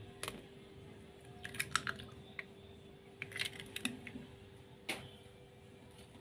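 An egg being tapped against a bowl and cracked open over raw peeled shrimp: a string of light clicks and taps.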